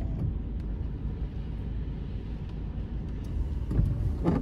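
Car heard from inside its cabin: a steady low rumble of engine and road noise.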